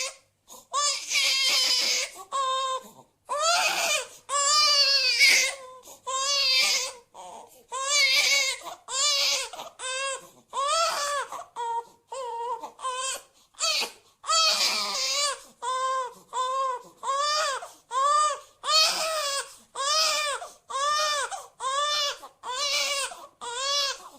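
Stock sound-effect recording of a baby crying hard: a long run of wailing cries, each rising and falling in pitch, with short breaks between them. Through the second half the cries come about once a second.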